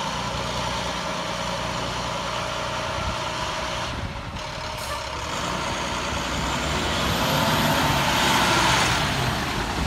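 Diesel engine of an International garbage truck running as the truck pulls away, getting louder over the second half, with a faint high whine rising and falling near the end.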